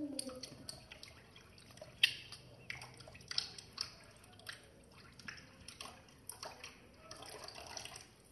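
Thin stream of water from a tap splashing and dripping irregularly as a hand is rinsed under it; the splashing stops near the end as the tap is turned off.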